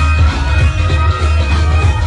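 Loud amplified music from a concert sound system, with a heavy, steady bass.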